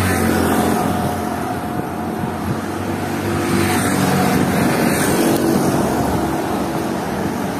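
Road traffic: a motor vehicle's engine running steadily close by over a constant rush of road noise.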